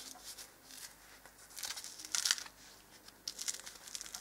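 Hands handling a homemade leather finger protector: faint scratchy rustling, with the loudest scrape about two seconds in.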